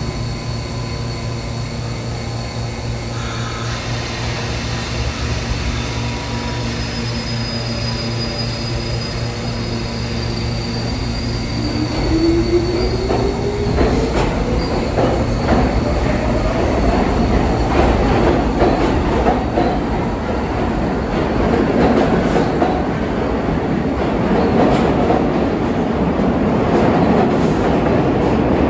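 R46 subway train standing at the platform with a steady low hum, then pulling out about twelve seconds in: a motor whine rising in pitch as it accelerates, followed by louder rumbling wheel and rail noise with repeated clicks as the cars roll past.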